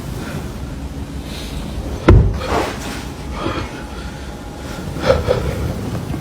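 A single loud bang about two seconds in, with a few softer knocks and rustles after it.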